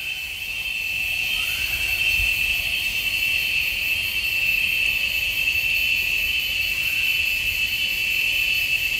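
Steady high-pitched chorus of insects in the trees, droning without a break.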